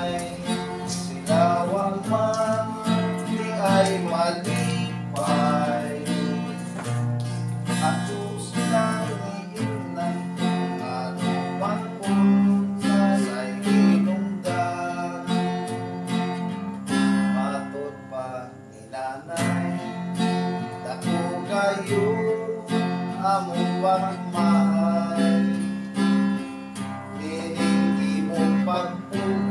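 Acoustic guitar strummed in a steady rhythm, playing chords with melody notes on top.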